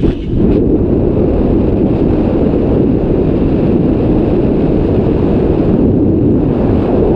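Steady low wind rumble buffeting an action camera's microphone while skiing fast downhill, mixed with skis carving on groomed snow.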